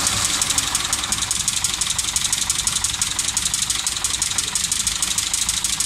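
Opel Kadett 200is four-cylinder fuel-injected OHC engine idling steadily with a fast, even ticking, just after it has caught on its first start after standing for two years.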